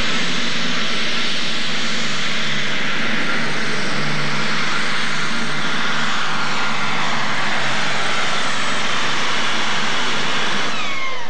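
Super stock pulling tractor (a Ford/New Holland) running its engine flat out under full load as it drags the weight sled, a dense loud engine noise with a high steady whine above it. Near the end the whine and engine pitch fall away as it comes off the throttle at the end of the pull.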